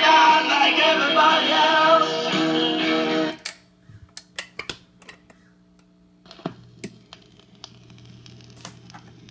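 1955 RCA Victrola 6-EY-3B 45 rpm record player playing a rock song through its own speaker, with male singing and guitar. The song stops abruptly about three seconds in. Scattered clicks and a steady low hum from the player's mechanism follow, and the hum drops in pitch about six seconds in.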